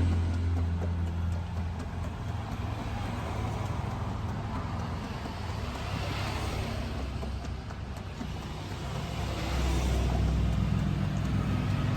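A steady low engine hum, with a hiss over it that swells and fades.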